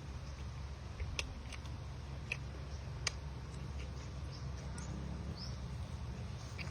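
Eating sounds from chewing crispy fried pork ribs: a few scattered sharp clicks and crunches over a steady low hum.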